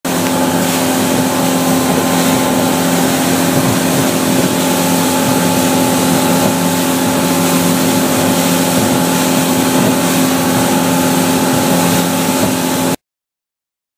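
Motorboat underway at speed: the engine runs with a steady hum over a loud rush of water spray and wind, until it cuts off suddenly near the end.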